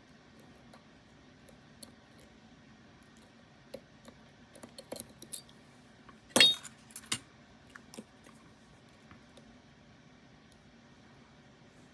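Small metal lock parts and tools clicking and clinking as they are handled. A run of light clicks leads to a louder, ringing metallic clink about six seconds in, with a smaller one a moment later.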